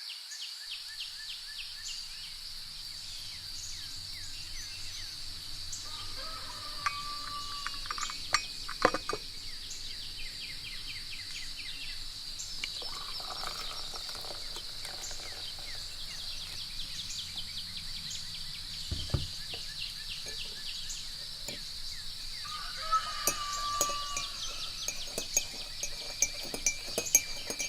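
Morning outdoor ambience: a steady high chirring of crickets under many small birds chirping and calling, with a dull low thump about two-thirds of the way through and a run of light clicks and clinks near the end.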